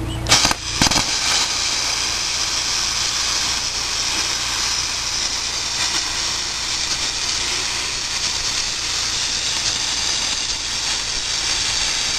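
Lotos Cut40D air plasma cutter, set to 30 amps, cutting 1/8-inch aluminium tread plate. The arc starts with two sharp cracks, then a steady loud hiss that stops abruptly at the end.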